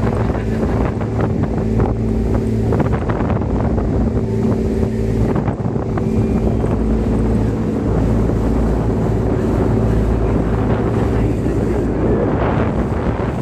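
Boat engine running at a steady pace, with wind rushing over the microphone.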